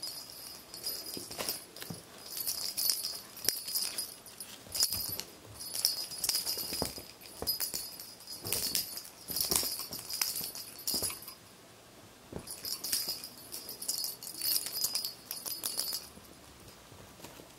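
A small jingle bell shaken in repeated bursts of high, bright ringing, with light rustling. It pauses about eleven seconds in, starts again, and stops near the end.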